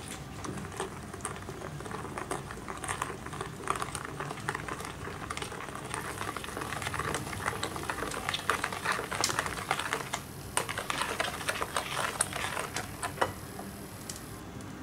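Wire balloon whisk beating a thin egg batter by hand in a bowl: a rapid, irregular clatter of clicks as the wires strike the sides of the bowl, with a brief lull about two-thirds through.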